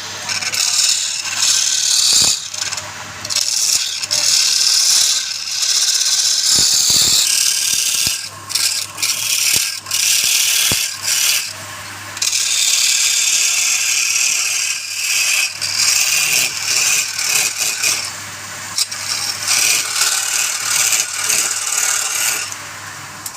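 A woodturning lathe running with a tool scraping against the spinning wood. It makes a harsh hiss that comes and goes in long stretches over a steady motor hum, with a few sharp clicks.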